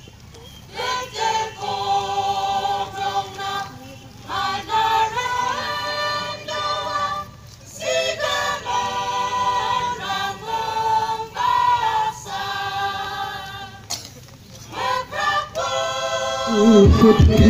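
A group of voices singing together without instruments, a choir in sung phrases with short breaks between them. Near the end a much louder, low, steady sound suddenly cuts in.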